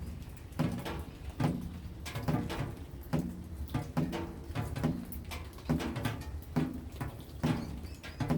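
Rain dripping in an even rhythm: a drop a little more than once a second strikes a surface that rings briefly with a low tone, with lighter patter of smaller drops between.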